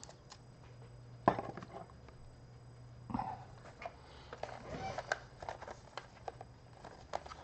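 Small clicks, taps and knocks of laptop parts and a hard drive being handled and set down on a bench, with a sharper knock about a second in and a run of small clicks later on; a faint low hum underneath.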